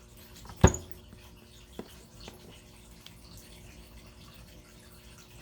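A single sharp tap about two-thirds of a second in, then two faint ticks, over a low steady hum: the small sounds of a tarot deck being handled.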